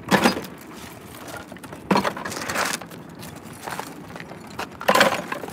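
Rusty scrap metal clanking and scraping as pieces are picked up off the pavement and dropped back onto a loaded folding wagon, with three loud clanks: one at the start, one about two seconds in and one near the end.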